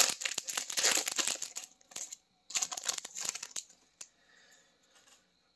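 Foil wrapper of an Upper Deck hockey card pack crinkling and tearing as it is pulled open by hand, in two bursts, the first about two seconds long and the second about a second. A single click follows about four seconds in.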